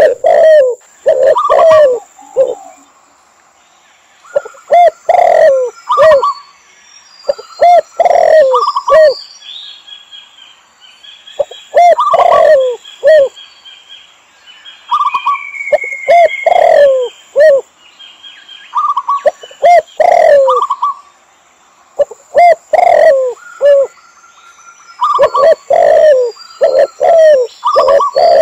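Mixed calls of spotted doves, red collared doves and zebra doves: repeated phrases of low cooing, the loudest sounds, with higher chirping and trilling notes between them and short pauses.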